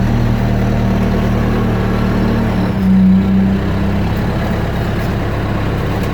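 Backhoe engine running steadily at low speed while crawling in first gear towing a car, with a brief louder swell about three seconds in.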